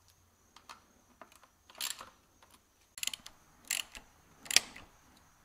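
Socket ratchet clicking in about four short runs as the fork's triple-clamp pinch bolts are turned and lightly snugged.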